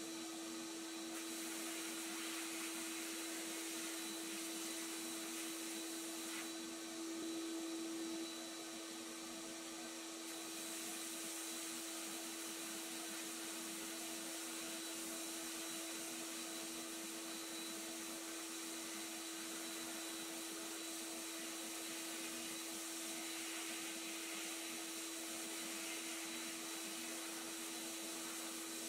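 Abrasive blast cabinet running: a steady hiss of the blast nozzle stripping paint from steel toy truck parts, over a steady hum.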